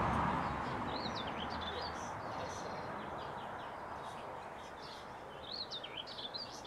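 Goldfinch calls: quick, liquid twittering chirps about a second in and again in a longer run near the end, over a steady background noise that slowly fades.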